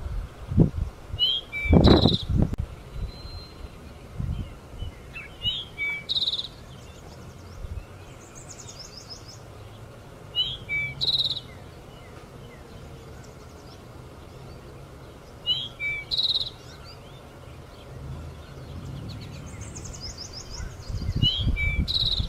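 A songbird singing the same short phrase over and over, about every five seconds, each phrase a few quick high notes ending in a brief trill. Loud low thumps come about two seconds in and again near the end.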